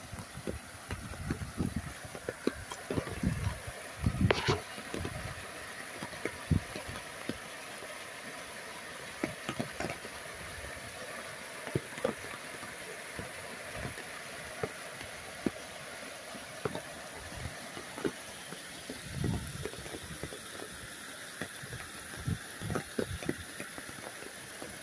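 Heavy monsoon rain and flowing water: a steady hiss with many scattered drips and splats, and a few brief low rumbles.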